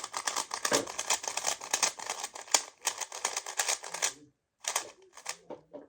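Non-magnetic twisty-puzzle cube being turned fast through an algorithm: dense clicking and clacking of plastic layers for about four seconds, a short pause, then a few more turns near the end.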